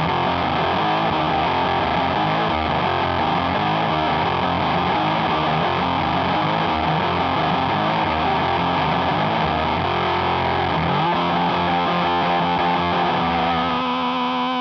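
Electric guitar through a Catalinbread Carbide distortion pedal, dry knob at zero with the wet and emphasis knobs at mid, playing a heavily distorted riff. About eleven seconds in it settles on one held chord that rings on.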